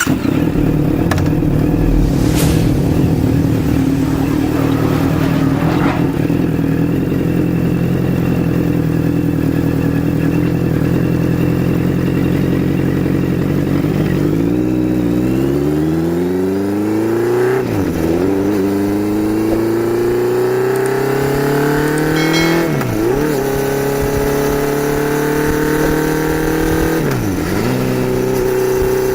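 Honda CBR650F's inline-four engine through an SC-Project S1 slip-on exhaust, loud and running at a steady pitch, then accelerating hard with a rising pitch that drops sharply at three upshifts in the second half.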